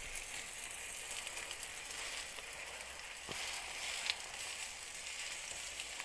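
Beef burger patties frying in hot oil in a nonstick pan: a steady sizzle with scattered small crackles.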